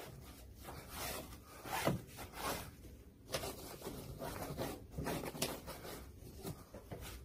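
A cloth rag scrubbing and wiping a greasy surface in short, irregular strokes.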